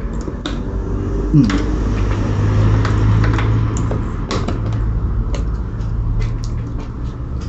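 A screwdriver doing up the air filter cover screws on a Honda CBF125: scattered light clicks and taps of metal on plastic, over a steady low hum.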